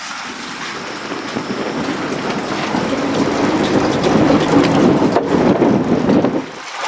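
Loud, even rush of wind and sea on the open deck of a fishing boat in choppy water. It builds up, then drops off suddenly near the end.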